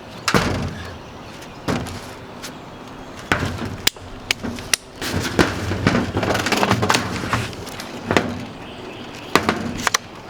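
A series of sharp, irregular clicks and knocks, coming thicker about halfway through.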